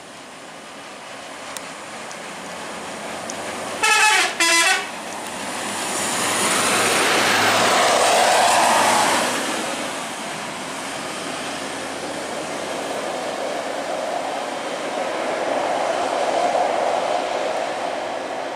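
Two short horn toots from a vehicle, then a heavy vehicle passing close, its engine and tyre noise swelling and fading away. Steady traffic noise follows, with a smaller swell near the end.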